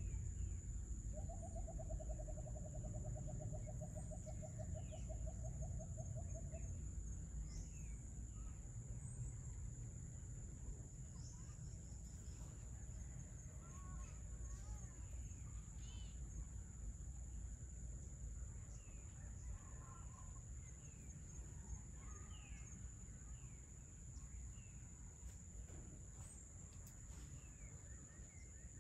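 Outdoor dusk ambience over tropical forest: a steady high-pitched insect drone and scattered short bird chirps over a low background rumble that slowly fades. About a second in, an animal gives a low, rapid trill lasting about five seconds.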